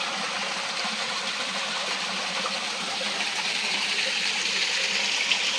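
A small stream of water runs and splashes steadily over rocks into a shallow pool.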